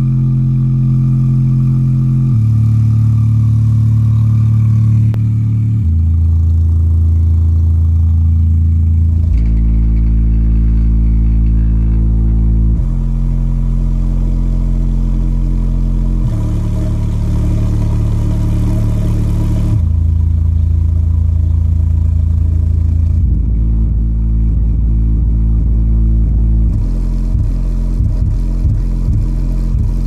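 Subwoofer in a carpeted ported box playing a hip-hop track at high volume: long, deep bass notes that change pitch every three to four seconds, turning choppy near the end.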